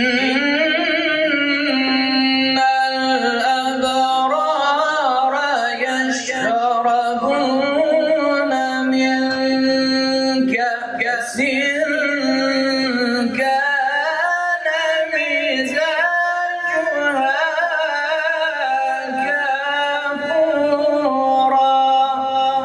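A man reciting the Quran in melodic tajweed style (tilawah): long drawn-out phrases on held notes, decorated with wavering melismatic turns.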